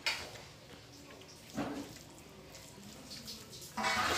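Eating sounds: a person chewing a hand-fed mouthful of rice and curry, with a few short handling sounds and a louder one near the end.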